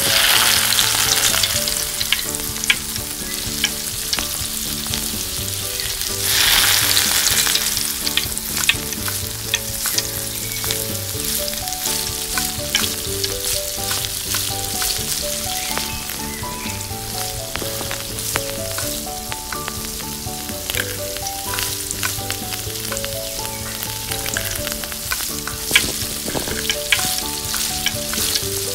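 Food frying in hot oil in a miniature pan: a loud sizzle starts suddenly as the food goes in and surges again about six seconds in. It keeps sizzling steadily, with many light clicks of a utensil stirring.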